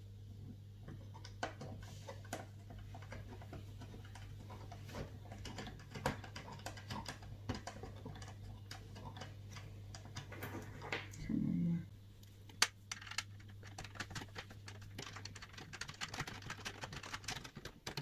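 Small irregular clicks and taps of metal and plastic CPU-cooler mounting hardware being handled and screwed into place on a motherboard, over a steady low hum that stops near the end.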